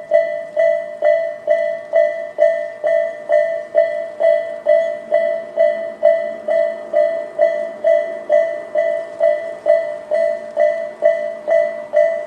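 Japanese railway level-crossing alarm, the electronic Tobu 'sound A' type used on both sides of the crossing, ringing a steady repeating electronic bell tone, about two strikes a second.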